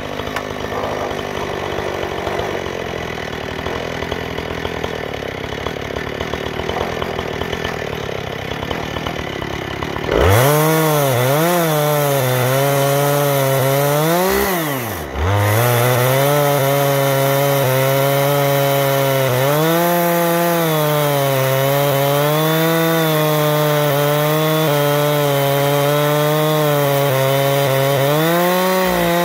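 Husqvarna 460 Rancher two-stroke chainsaw in an Alaskan chainsaw mill ripping a cedar log lengthwise into boards. It runs quieter and slower for about ten seconds, then is throttled up sharply with the revs swinging up and down, dips briefly, and holds at high revs under load with a slightly wavering pitch as the bar cuts along the log.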